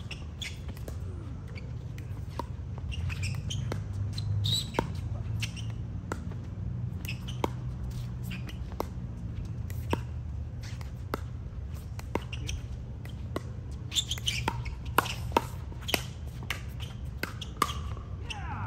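Pickleball rally: paddles striking the hard plastic ball with sharp pops about a second apart, coming quicker for a stretch near the end, and sneakers squeaking on the court, over a steady low hum.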